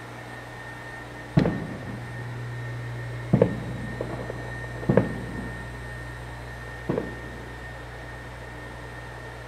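Experimental electronic sound piece: a steady low drone and hiss with a faint high tone held over it, broken by four sharp hits with a low ringing tail, spaced irregularly about one and a half to two seconds apart, with a few softer clicks between.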